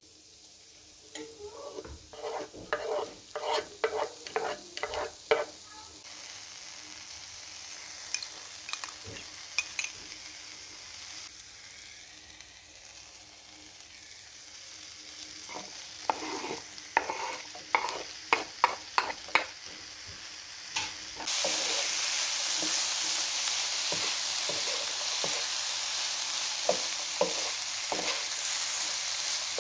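Food sizzling in a hot frying pan, stirred with a utensil that scrapes and taps against the pan in two runs, one near the start and one around the middle. About two-thirds of the way in, the sizzle suddenly gets louder and stays louder.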